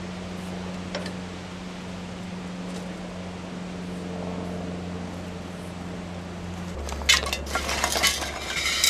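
Steady low hum, then about seven seconds in a quick run of metallic clinking and rattling from aerosol spray-paint cans knocking together and rattling.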